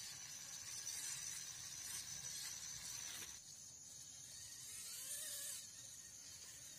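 Faint outdoor background with a steady high-pitched hiss. The sound drops in level abruptly about three seconds in.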